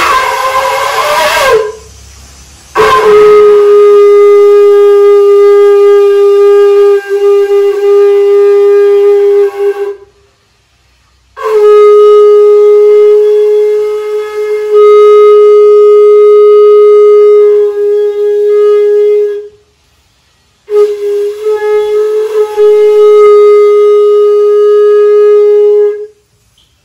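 Conch shell (shankha) blown during a home puja: a short wavering note, then three long, steady blasts at one pitch, of about seven, eight and five seconds, with brief pauses for breath between them.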